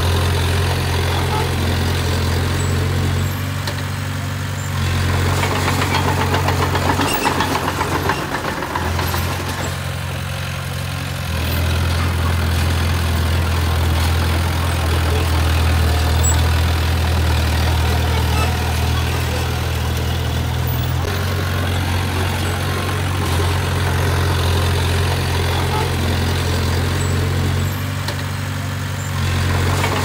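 Heavy earthmoving machine's diesel engine running continuously, its low drone shifting in pitch and load every few seconds as the machine works.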